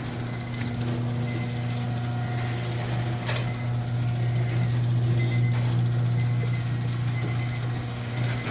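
Electric garage door opener running steadily with a low motor hum as the door rises, stopping just before the end.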